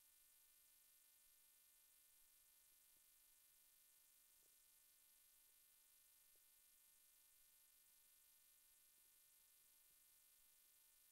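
Near silence: a faint, steady electrical hiss and hum.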